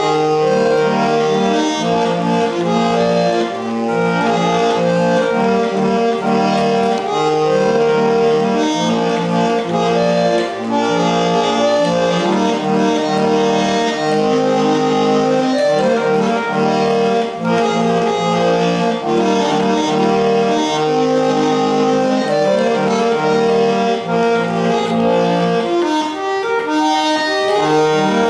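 Hand-cranked barrel organ of a Theroude monkey automaton playing a tune: a melody of held notes over a regular bass line, the bass dropping out briefly near the end.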